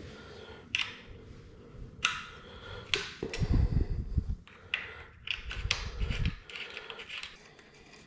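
Steel Allen keys clinking and clicking against each other as they are sorted by hand, a scattered series of sharp metallic clicks, with a couple of duller handling bumps about three and a half and six seconds in.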